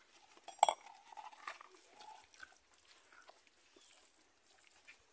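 A metal spoon clinks sharply against a large aluminium pot about two thirds of a second in, ringing briefly. Faint scraping of spoons through tamale masa follows.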